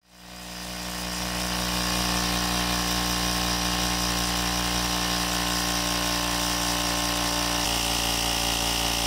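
Portable electric tyre inflator (air compressor) running steadily as it pumps the tyre up toward its normal 35 psi, a loud, even motor hum. It builds up over the first two seconds and stops near the end, as the pressure reaches 35 psi.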